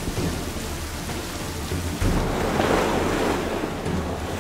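Steady rain: an even hiss of falling drops that gets louder about two seconds in, with a low rumble underneath.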